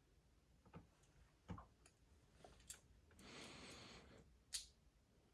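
Faint clicks of Lego plastic pieces being handled and pressed together, a few separate clicks with a brief soft rustle about three seconds in and a sharper click near the end.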